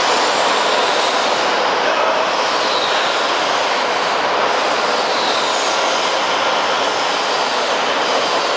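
Powder coating line machinery running, a loud, steady rushing hiss, with a few faint high squeaks.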